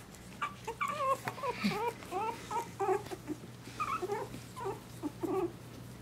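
Malshi puppies yipping and whining during play, with many short high calls in quick succession that stop about five and a half seconds in.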